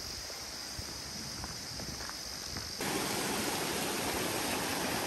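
Steady outdoor hiss with a few faint clicks, then about three seconds in an abrupt switch to the louder, steady rush of a mountain stream flowing over rocks.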